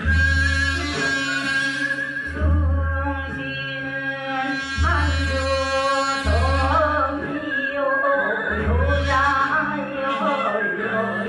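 Korean folk song being performed: a singing voice over accompaniment, with a low pulse about every two seconds.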